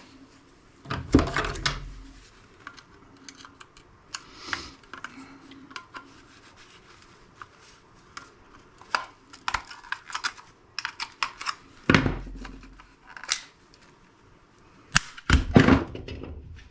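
Plastic case of a dead DeWalt lithium-ion battery pack being worked open by hand: scattered clicks, scrapes and knocks, with louder thumps about a second in, a little past the middle, and near the end.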